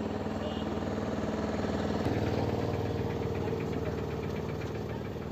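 A vehicle engine idling steadily, growing a little louder about two seconds in.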